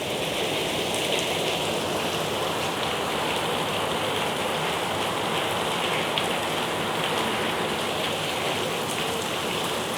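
Steady rain falling: an even hiss with a few scattered drop ticks.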